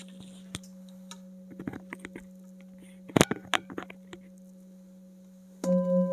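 A few light clicks and knocks of handling over a faint steady low tone, then near the end a metal singing bowl is struck with a padded mallet and rings out with a low tone and several higher overtones.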